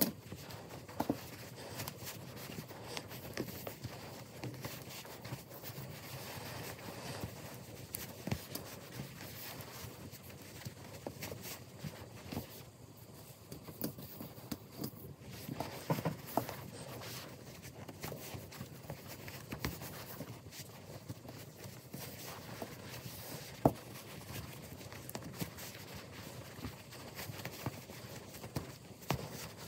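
Soft rustling and scattered light taps of hands working giant chunky yarn, pulling loops through by hand for back-loop crochet stitches.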